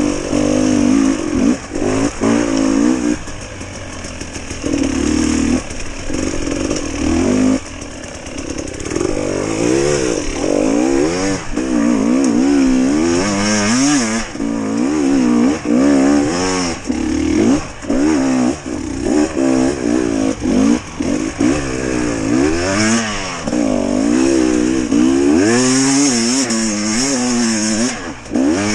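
GasGas hard enduro motorcycle engine revving hard and falling back again and again, its pitch swinging up and down every second or less as the throttle is worked on rough ground.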